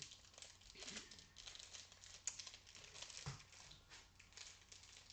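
Faint crinkling and rustling of packaging handled in the hands, with a couple of short, slightly louder knocks in the middle.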